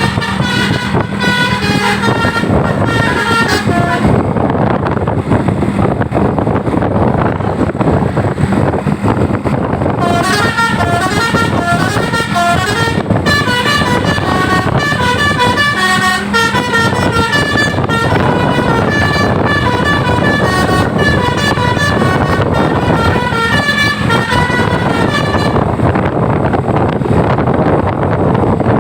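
Telolet multi-tone air horn on a tour bus playing a quick melody of short notes that step up and down, over steady vehicle running noise. The horn breaks off about four seconds in, starts again around ten seconds and plays on until a few seconds before the end.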